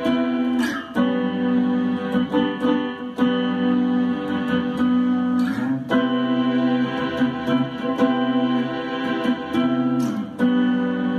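Electric guitar played with one hand on the fretboard together with keyboard chords, both played at once. The chords change every two seconds or so, with short picked notes on top.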